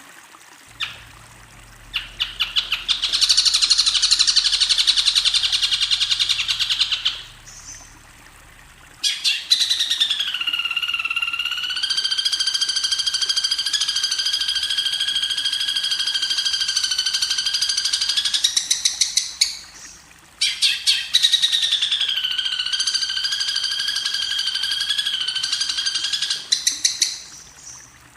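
A songbird giving long, loud chattering trills in three bouts, each opening with a few quick clicks and settling into a fast, even rattle, with short pauses between bouts.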